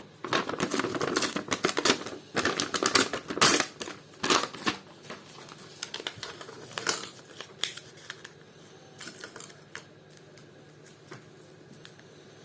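Clicks and rustles of hands handling a small plastic pedometer and its parts, busy for the first few seconds, then only the odd light click.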